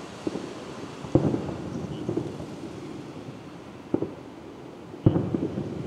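Aerial firework shells bursting: about five sharp booms, each with a rolling echo, the loudest about a second in and near the end.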